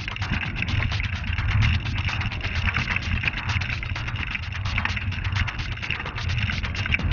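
Mountain bike rolling fast down a rocky trail: a dense, continuous rattle of tyres, chain and frame jolting over stones, over a steady low rumble.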